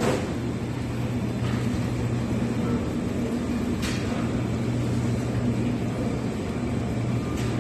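Steady low machine hum of a supermarket's refrigeration and ventilation, with a couple of brief clicks about four seconds in and near the end.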